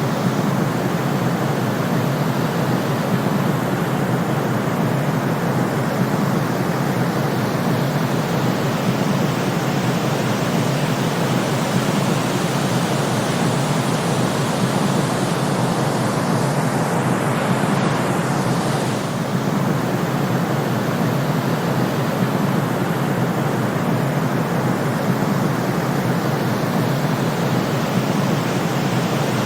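Steady synthetic noise of a sleep-timer track, even and hissing with most of its weight in the low and middle range, dipping slightly in level about nineteen seconds in.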